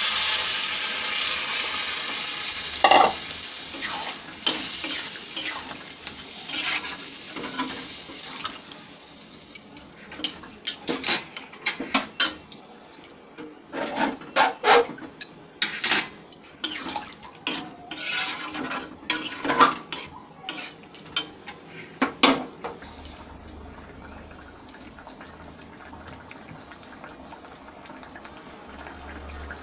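Water poured into a hot iron kadai of spiced chicken sizzles loudly at first, the hiss dying away over a few seconds. A metal spatula then clanks and scrapes against the kadai in quick, irregular strokes as the curry is stirred. The clatter stops about three-quarters of the way through, leaving a faint steady hiss.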